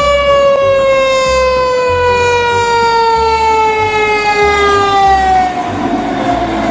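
Fire-engine siren: one long tone that slides slowly and steadily down in pitch throughout.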